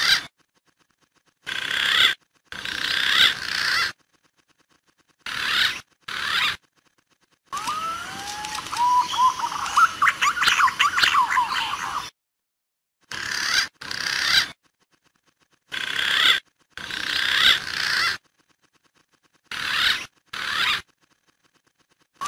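Looped lure recording of green pigeon (punai) calls, cut into short bursts with dead-silent gaps between them. A longer passage about a third of the way in holds rising whistled notes.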